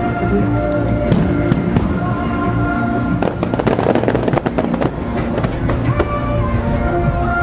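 Aerial fireworks bursting and crackling over loud accompanying show music, with a dense run of crackling bangs about three to five seconds in.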